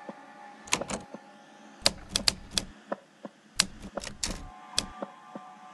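Typewriter keys struck in short, uneven runs of a few strokes at a time, over a faint steady hum. It is the sound of a denunciation being typed out.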